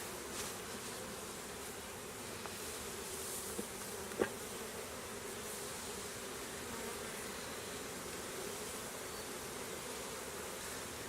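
Honeybees buzzing steadily in a dense hum around an opened hive during a frame inspection, with one sharp click about four seconds in.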